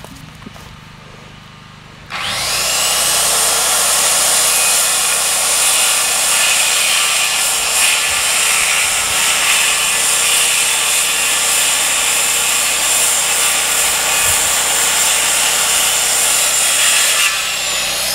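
Electric circular saw cutting into a wooden post. It starts suddenly about two seconds in, runs steadily for about fifteen seconds, then winds down near the end.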